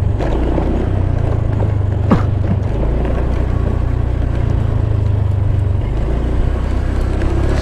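Motorcycle engine running at low speed on a rough dirt road, a steady low rumble that steps in pitch a couple of times, with a single sharp knock about two seconds in.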